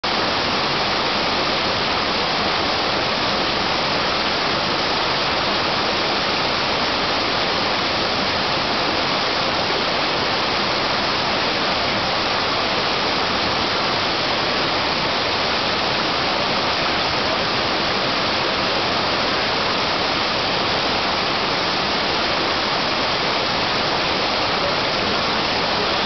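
Mountain creek rushing steadily over boulders in small cascades and waterfalls: a constant, even rush of water.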